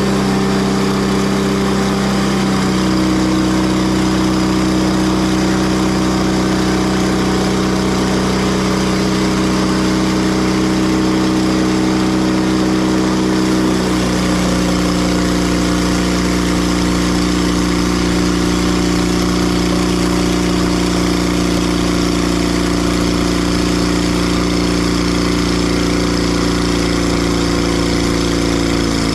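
Engine of a Timber Harvester bandsaw mill running steadily, its pitch shifting slightly as the load changes, about two seconds in and again halfway through.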